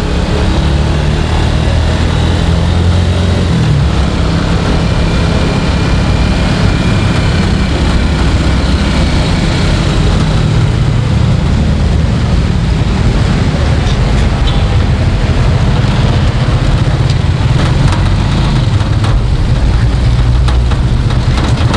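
A small vehicle's engine running steadily while under way, heard from on board as a low, even drone, with street traffic noise around it.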